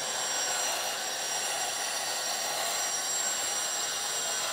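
LESU 1/14 hydraulic RC excavator's drive running as the upper body swings round, a steady high whine with a hiss.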